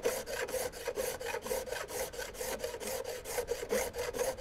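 Shinto rasp drawn in quick back-and-forth strokes, about four to five a second, across the end of a wooden gunstock. It is taking hardened acrylic glass bedding down flush, and its teeth are starting to touch down on the level surface.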